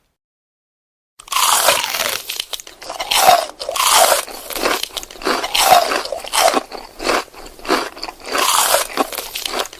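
Crisp food being bitten and chewed close to the microphone: loud, repeated crunches, about one to two a second, starting after about a second of silence.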